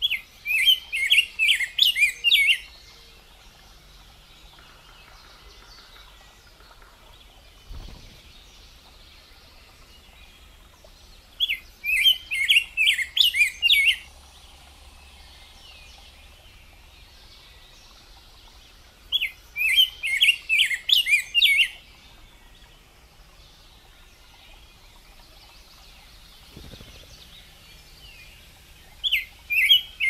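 Male rose-breasted grosbeak singing: a rapid run of quick whistled notes lasting about two and a half seconds, repeated about every eight seconds. Three full phrases are heard, and a fourth begins near the end.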